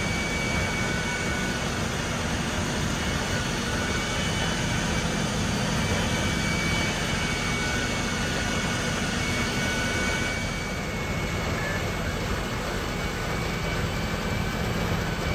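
Steady engine drone of fire engines running their pumps to feed the hose jets, with a couple of faint steady high tones over it.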